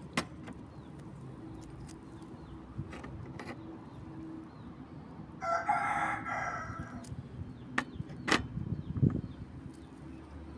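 A rooster crows once around the middle, one call about a second and a half long. A few sharp clicks and a dull thump near the end come from dishes being handled.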